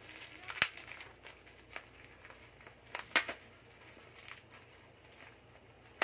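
Plastic packaging being handled and pulled open: soft crinkling and crackling with a few sharp snaps, the loudest about half a second in and about three seconds in.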